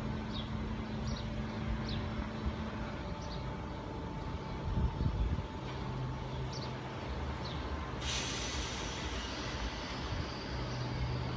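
Merseyrail electric train running with a steady low electric hum. About eight seconds in, a sudden hiss of air starts and carries on, as from the train's air brakes. Several short high chirps come and go.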